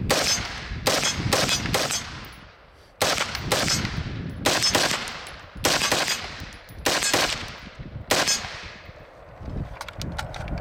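Semi-automatic AR-15 rifle with a 20-inch barrel firing .223 Remington: about a dozen shots in irregular strings, each with a fading echo. A few faint light clicks follow near the end.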